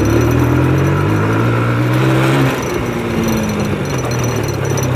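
Motorcycle engine running at low revs. Its pitch climbs gently for about two and a half seconds, then eases back and holds steady.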